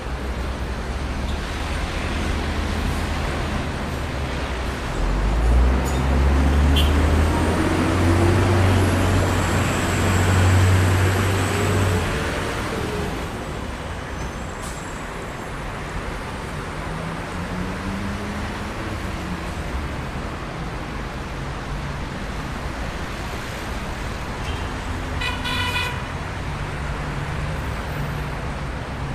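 Traffic jam: a steady rumble of vehicle engines in slow road traffic. One engine close by grows louder and rises in pitch as it accelerates, from about five to twelve seconds in. A short car horn toot comes near the end.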